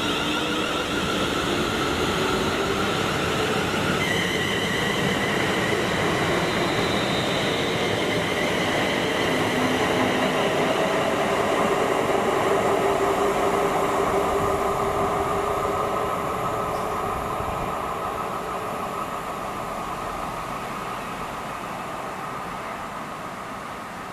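Passenger train passing, a rumble of wheels on rail with a whine in several steady tones that shifts pitch about four seconds in; it is loudest around twelve seconds in and fades away over the last several seconds.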